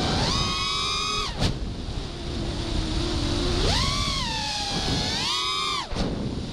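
FPV racing quadcopter's brushless motors (Emax RS2205 2300kv spinning HQ 5x4x3 three-blade props) whining, the pitch jumping up and dropping back several times as the throttle is punched and eased, over a rush of wind.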